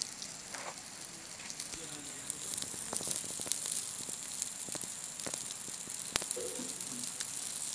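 Whole spiced fish sizzling over a charcoal grill as it is basted: a steady hiss with scattered sharp crackling pops.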